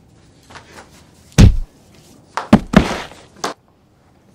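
A heavy thump about a second and a half in, the loudest sound, followed about a second later by a quick run of lighter knocks and scuffs.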